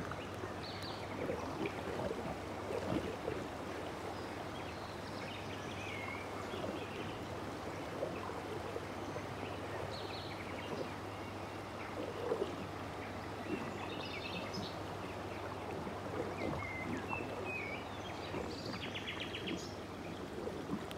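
Steady rush of river water flowing below a dam, with small birds chirping briefly now and then.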